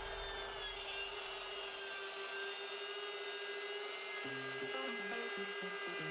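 Kyocera (ex-Ryobi) MTR-42F trimmer spinning an end mill and grinding into deer antler: a steady motor whine with a rough cutting noise. Quiet background music with a bass line comes in about two-thirds of the way through.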